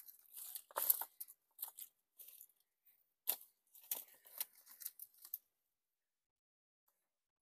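Dry grass and brush rustling and crackling as it is handled and pushed against the rock, in irregular crackles over the first five seconds or so.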